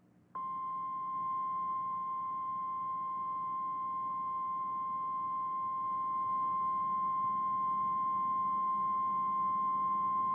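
Emergency Alert System warning tone: a single steady high-pitched beep at one pitch, in the manner of the National Weather Service's 1050 Hz alert tone. It starts about half a second in and holds unbroken. It announces a weather warning: here, a severe thunderstorm warning.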